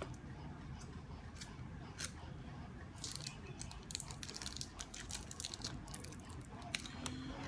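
Sellotape being pulled off the roll and wrapped around a wire joint: faint scattered crackles and ticks, with a run of sharper crackling about three seconds in.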